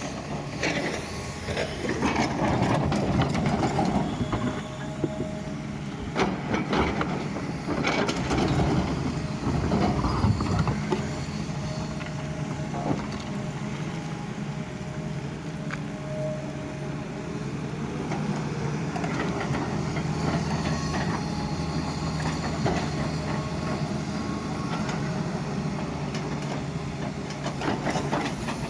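Doosan excavator's diesel engine running steadily under load while digging, with clanks and scrapes of the bucket in the ground, busiest in the first ten seconds.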